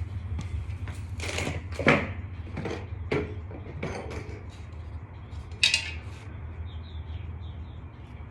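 Small metal tools and parts clinking and knocking as they are moved about in a search for a dropped screw, with several separate sharp taps, over a steady low hum.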